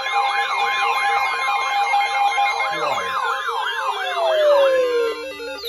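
Electronic siren alert tone, wailing up and down about twice a second over a steady two-note alarm tone. Near the end the pitches slide downward and the siren winds down.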